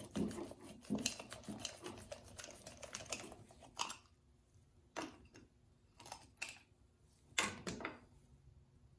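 Quick light clicking for about four seconds as a screwdriver backs the screws out of a chainsaw muffler, then a few separate knocks and clinks as the tools and the loosened muffler are set down on the workbench.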